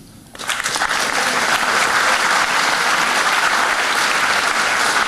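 Audience applauding, a dense steady clapping that breaks out about half a second in and keeps going.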